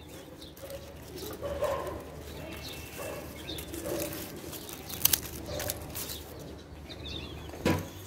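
Pigeons cooing, a string of soft low calls, with a few sharp snips of scissors cutting pandan leaves.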